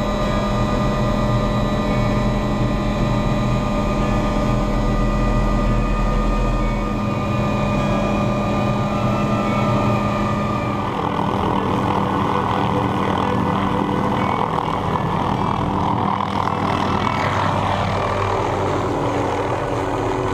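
Steady drone of an aircraft engine running throughout. The deep hum drops away about seven seconds in, and a rushing sound builds from about eleven seconds.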